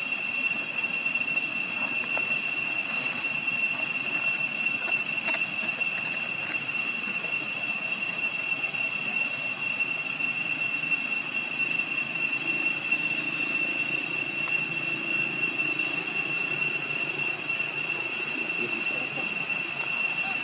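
A steady high-pitched whine holding one pitch without a break, over a faint hiss, with a few faint clicks.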